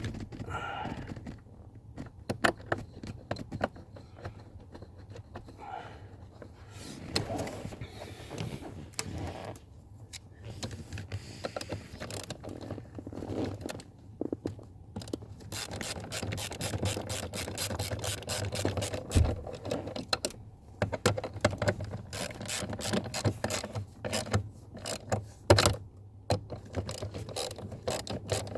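Ratchet clicking as screws are driven back in, with scattered handling clicks and scrapes at first. From about halfway on it becomes continuous rapid clicking.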